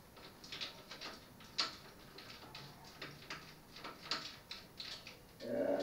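Irregular light metallic clicks and ticks as bicycle kickstand bolts are turned and the parts handled, with one sharper click about a second and a half in.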